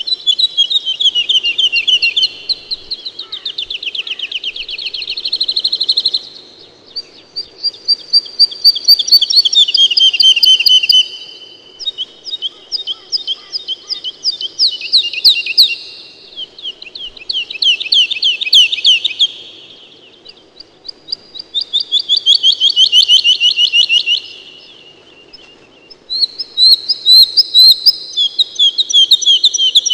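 A songbird singing close by: each song a rapid, trilled run of repeated notes lasting three to five seconds, given about six times with short pauses between.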